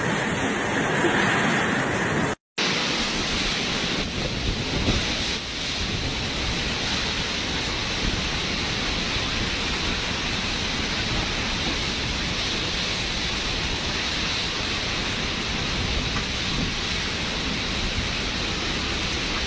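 Typhoon wind and heavy rain: a steady, dense rush of noise. It cuts out for an instant about two seconds in, then goes on unchanged.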